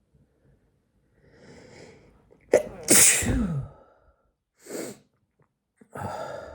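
A man's powerful sneeze: a drawn-in breath builds for about a second, then the sneeze breaks out suddenly about two and a half seconds in, its cry falling in pitch, followed by two shorter heavy breaths.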